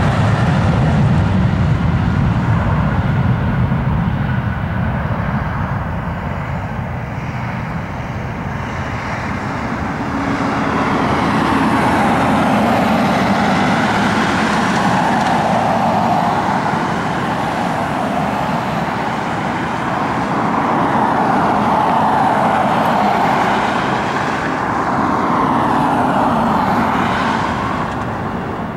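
Airbus A320's twin turbofan engines at takeoff power as the jet runs down the runway, lifts off and climbs away. A deep rumble at the start gives way to a higher, wavering jet noise that fades near the end.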